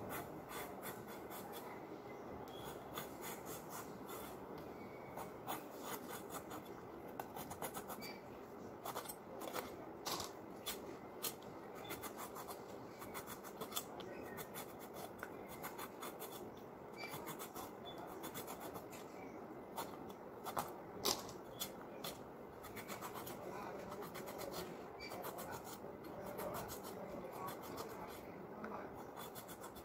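Pointed gourds being scraped and cut against the blade of a boti, a curved floor-mounted kitchen knife: faint, irregular scratching with many small clicks, a few of them louder around twenty seconds in.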